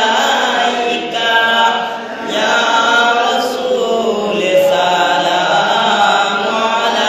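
A man's voice chanting Milad Sharif, an Islamic devotional recitation in praise of the Prophet, in a continuous melodic chant with a short break about two seconds in.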